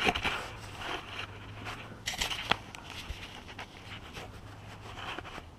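Camera handling noise: scattered clicks, scrapes and rustling as the camera is fitted to a head mount, over a low steady hum that stops near the end.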